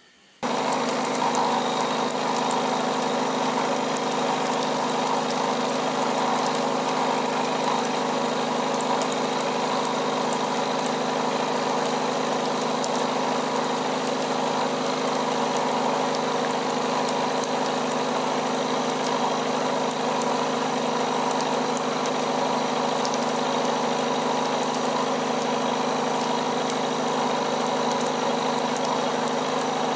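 Milling machine running a face-mill cutter through a steel block: a steady mechanical hum from the machine's drive with the even hiss and chatter of the cutter taking metal off. It starts abruptly about half a second in and holds steady throughout.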